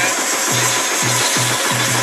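Background music with a pulsing bass line over a steady mechanical din, in keeping with a high-speed automatic press running.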